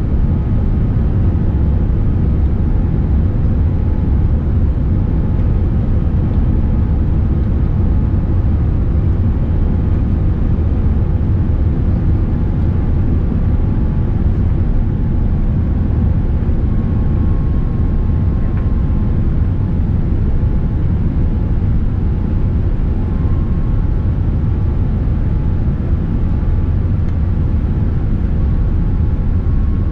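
Cabin noise inside a Boeing 787-9 airliner: a steady low rumble, with a few faint steady tones above it.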